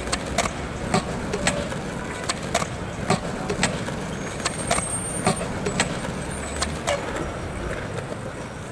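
Skateboard rolling on a smooth floor: a steady low wheel noise with sharp clicks at irregular spacing, about two a second, fading out near the end.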